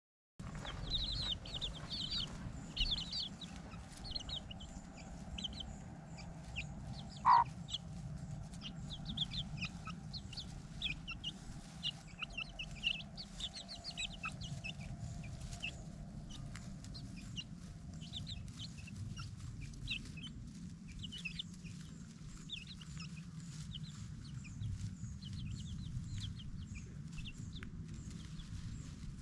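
A domestic hen and her half-grown chicks foraging: the chicks give many short, high peeps throughout, and one louder call rings out about seven seconds in.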